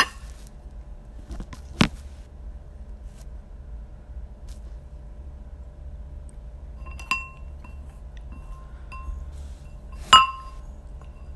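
An eating utensil clinking against a bowl four times, each clink ringing briefly. The last clink, near the end, is the loudest.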